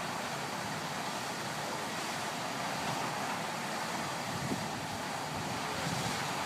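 Steady rushing noise of surf breaking on the beach, even throughout with no distinct events.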